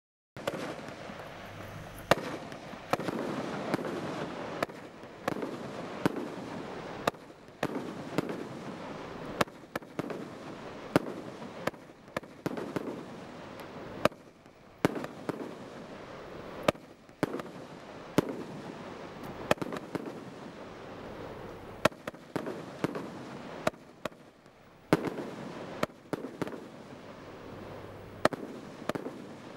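A 200-shot firework barrage cake (Satanic Desecration) firing, beginning about half a second in: sharp bangs of bursting shots, about one to two a second, over a continuous rushing crackle between them.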